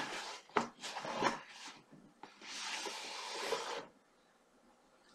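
Cardboard packaging rubbing and scraping as a box is opened, with several short scrapes, then a longer scraping slide of a little over a second as a hardcover book is pulled out of the box.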